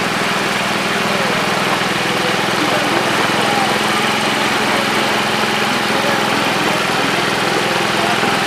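A motor running steadily with a constant low hum, most likely the pump feeding the ponds, under a continuous hiss of water spraying and splashing.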